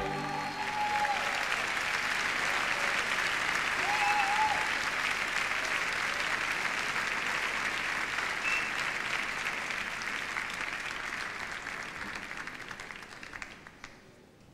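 Large theatre audience applauding as a song ends, a steady dense clapping that fades away in the last couple of seconds.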